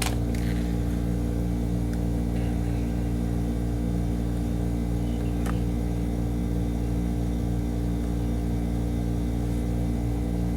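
Steady low hum, made of several fixed tones that never change, with a few faint clicks from the cards being handled.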